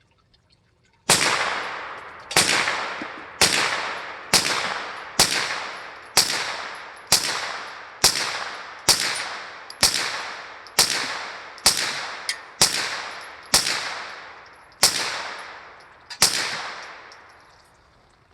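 Ruger PC Carbine 9mm rifle firing semi-automatic, about sixteen shots at a steady pace of roughly one a second, each sharp crack followed by a ringing echo that fades before the next.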